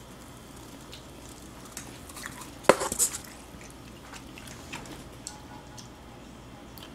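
Light clicks and knocks of chopsticks and plastic dishes at a meal table. The loudest cluster comes about three seconds in, with a few fainter taps before and after.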